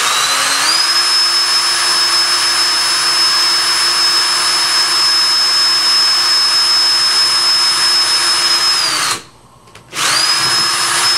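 Electric drill with a twist bit boring through the plastic centre of a 3.5-inch floppy disk: the motor whine rises as it spins up, holds steady, winds down and stops about nine seconds in, then starts again a second later.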